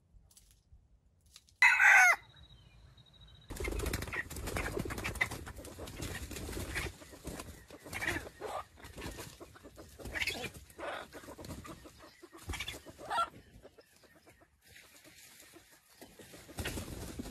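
Red junglefowl rooster gives one short, loud crow about two seconds in, then a string of short clucking calls.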